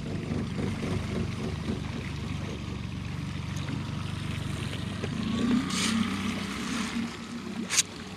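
A small boat's motor running steadily at low speed, with a short hiss about six seconds in and a sharp click near the end.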